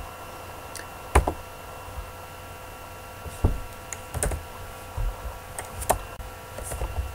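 Computer mouse and keyboard clicks: about half a dozen sharp, scattered clicks over a faint steady electrical hum.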